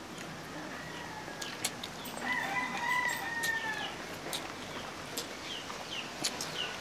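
A rooster crowing once: one long drawn-out call from about one and a half to four seconds in.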